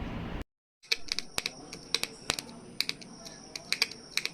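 Irregular light clicks, several a second, like tapping on a keyboard, over a faint steady high-pitched tone. They start about a second in, after a short dead-silent gap.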